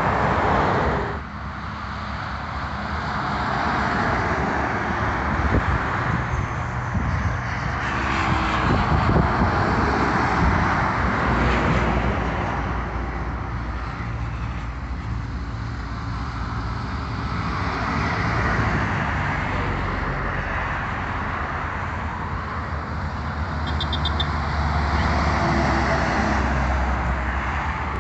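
Highway traffic passing close by: tyre noise and engine drone from cars and buses, swelling and fading as each vehicle goes by. The level drops suddenly about a second in.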